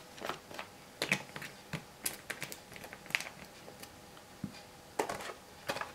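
Irregular light clicks and taps, about a dozen, as small vape atomizer parts are handled and set down on a work mat.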